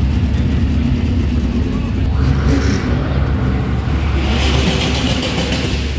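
Show cars driving slowly past one after another, engines running with a steady low rumble, first from a V8 Chevrolet Camaro IROC-Z. About four seconds in, as a modified Honda Civic follows, a burst of hissing and crackle joins the rumble.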